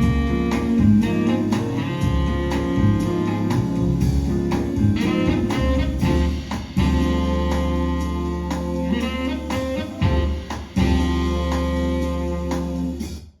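Instrumental music with no singing, played through a Technics SU-V85A hi-fi amplifier and Jensen Challenger 2000 loudspeakers. It cuts off suddenly near the end.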